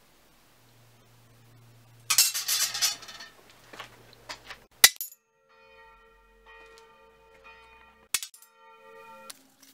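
A hiss lasting about a second, then a sharp metal strike followed by a long bell-like ringing of struck steel, with a second strike near the end.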